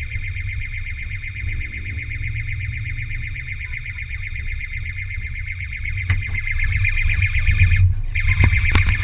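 Car alarm sounding, a high, rapidly pulsing electronic tone over a low rumble. Just before the end it cuts out briefly and comes back louder, with a few knocks around it.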